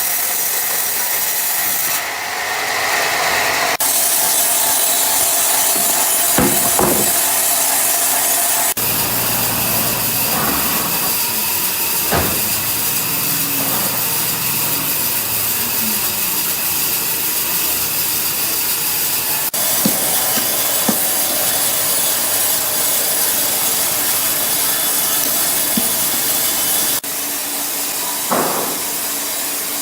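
Sawmill saw cutting through an ironwood log, a steady hissing, rasping noise. It comes in several short clips joined by abrupt cuts, with a few knocks of wood along the way.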